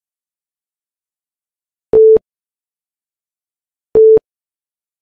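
Countdown timer beeping: two short, identical electronic beeps about two seconds apart, each a single steady mid-pitched tone.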